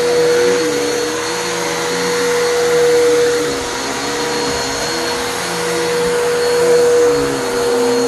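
Vacuum cleaner running steadily while pre-vacuuming carpet, with a steady motor whine and a lower hum that rises and falls.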